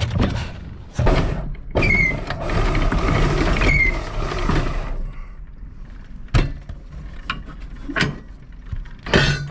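Anchor windlass hauling in the chain for a few seconds, with two short squeals, as the anchor is drawn up into the bow roller. A few separate sharp knocks follow.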